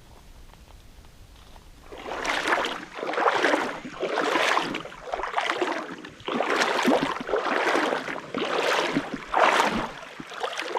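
Footsteps wading through shallow creek water: a regular splashing swish about once a second, starting about two seconds in.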